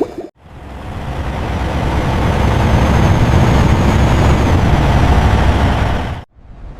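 A steady, low mechanical rumble, like a heavy engine running, that swells in over the first couple of seconds and cuts off abruptly near the end.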